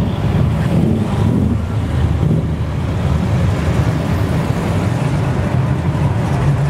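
Classic cars driving slowly past one after another, their engines running with a deep, low note; one engine's pitch rises briefly about a second in.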